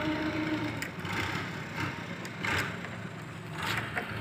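Screwdriver tightening a terminal screw on a VFD's power terminal block, with a few light clicks and scrapes of metal on the cable lug, over a steady low hum in the background.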